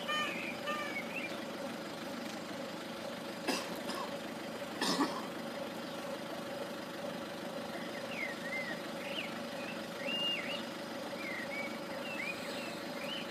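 Small birds chirping over a steady low hum, with two sharp knocks about three and a half and five seconds in.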